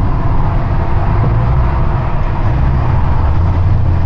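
Box truck on the move: a steady, loud, low rumble of engine and road noise.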